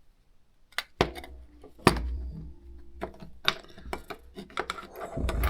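Light clicks, taps and clinks of an opened iPod's metal case and internal parts being handled, with a low rumble of handling noise. About a dozen sharp ones, the loudest about two seconds in.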